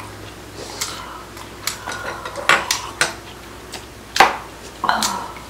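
Chopsticks and a metal spoon clicking against bowls and dishes during a meal: a handful of separate clinks, the sharpest about four seconds in.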